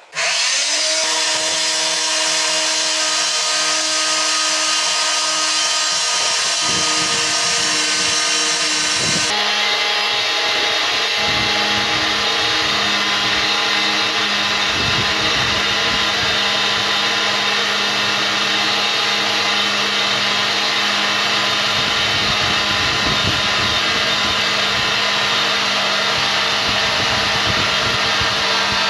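Vertical metal-cutting band saw starting up suddenly, then running steadily as its blade cuts through a steel bar along a marked sword-blade outline.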